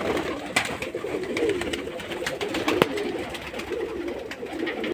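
A flock of domestic pigeons cooing continuously, with many sharp taps scattered through it as the birds peck grain off a concrete floor.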